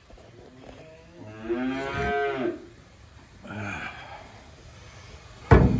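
A cow mooing: one long call that rises and falls, then a shorter, fainter moo. A sharp, loud slam near the end.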